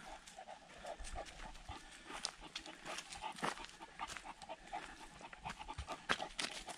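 Dog panting steadily as it walks, close to the microphone, with paws crunching on dry leaves and twigs.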